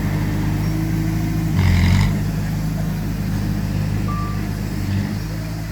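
Heavy diesel machinery engine running steadily, with a short burst of noise about two seconds in and a single short reversing beep near the end.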